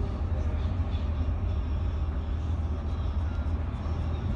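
Mercedes-Benz Travego coach cruising on a highway, heard from inside the cabin: a steady low rumble of engine and road noise.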